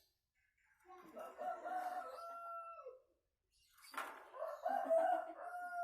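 A rooster crowing twice, each crow about two seconds long and ending in a held, drawn-out note.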